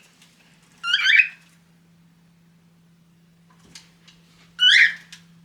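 Cockatiel calling twice, two loud short calls about four seconds apart.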